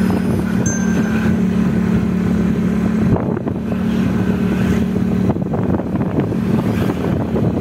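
Steady engine drone from the vehicle carrying the camera as it drives along a road, with wind noise on the microphone.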